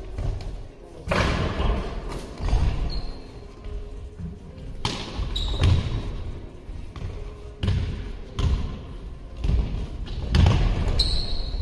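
Basketball bouncing and dribbling on a hard gym floor in irregular thuds, with a few short high squeaks of sneakers, echoing in a large sports hall.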